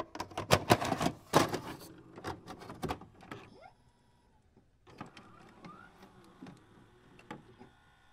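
A mechanism clicking and clunking, like a videocassette being loaded into a VCR: a dense run of loud clicks and knocks in the first three seconds, then after a short pause quieter ticks with a brief rising motor whir.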